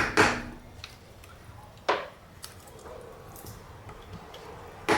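Metal tool knocks at a car's rear wheel hub as its dust cap is worked off: a sharp knock at the start and another about two seconds in, with a few light clicks between.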